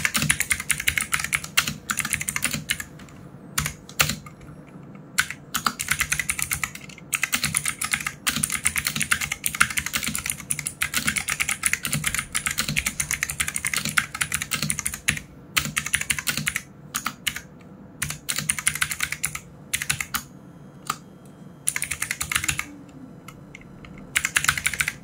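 Typing on an NYK Helens MKN06 60% mechanical keyboard with clicky Otemu blue switches, close to the microphone: fast runs of clacking keystrokes broken by short pauses several times.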